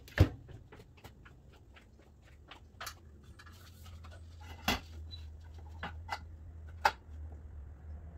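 Scattered sharp knocks and clicks, the loudest about a quarter second in, from climbing an aluminium stepladder and handling a roof side rail on a minivan's roof. A low steady hum comes in about four seconds in.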